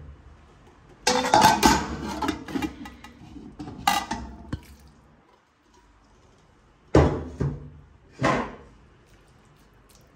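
Cookware clattering as a cooked minced-meat mixture is tipped and scraped from a steel pot into a nonstick wok, a busy run of knocks and scrapes lasting a few seconds from about a second in. Later come three separate sharp knocks of a utensil against the wok.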